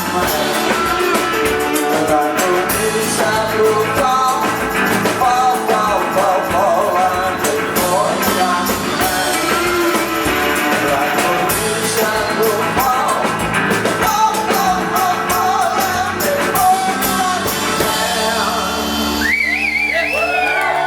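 Live rock band playing loud, with drums and guitars; about nineteen seconds in, the song ends on a ringing final chord as the crowd starts to cheer.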